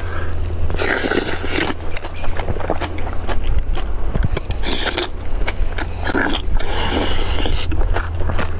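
Eating sounds: utensils scraping and clicking against the dishes, with slurping and chewing in short noisy bursts, over a steady low wind rumble on the microphone.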